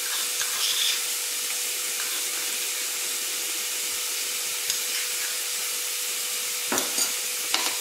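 Chopped onions sizzling steadily as they fry in oil and butter in a stainless steel pan, with two light spoon clicks near the end.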